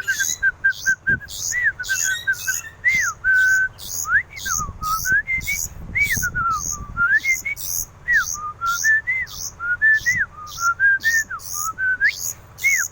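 A tame pet songbird singing: clear whistled notes that glide up and down, over a steady run of very high chirps at about two or three a second.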